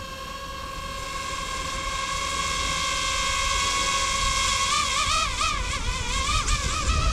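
DJI FPV drone's propellers whining as it hovers, a steady hum that grows louder, then wavers up and down in pitch as the motors change speed.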